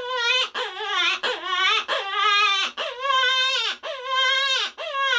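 Hand-blown predator call giving rabbit distress cries: a run of about seven drawn-out, wavering wahs, each ending with a drop in pitch. These are the longer, slower wahs used to open a calling stand, before the cries are made shorter and faster.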